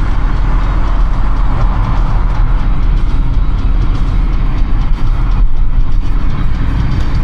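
Steady low rumble of road and traffic noise heard from a car driving through city streets, with no distinct events.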